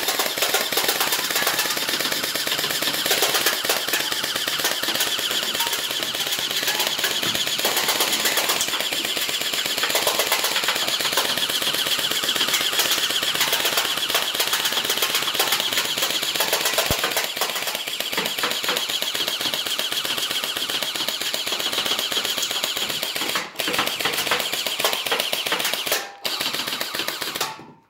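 Electric gel blaster, a Magpul PDR fitted with a Gen8-style gearbox and fed from a drum magazine, firing full-auto in one long, rapid burst on a partly flat 7.4 V battery. Gel balls strike and knock over drink cans. The firing breaks briefly twice near the end and then stops.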